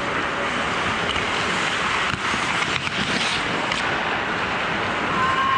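Ice rink noise: a steady hiss of hockey skates cutting the ice, with a few faint clicks of sticks and puck in the middle.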